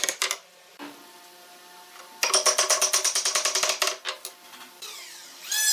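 Rapid wooden knocking in two bursts, about a second and a half apart, as the joints of a pine chair frame are driven together, with a few single knocks after the second burst.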